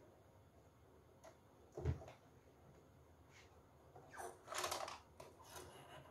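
Faint handling sounds of cotton cloth being folded and shifted under a sewing machine's presser foot: one dull knock about two seconds in, then a short rustle of fabric a little after the midpoint.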